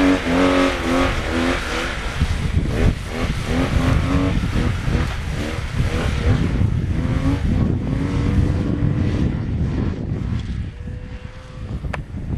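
Snowmobile engine revving up and down as it is ridden through tight turns, the engine note rising and falling repeatedly on and off the throttle, over a heavy low rumble of wind on the microphone.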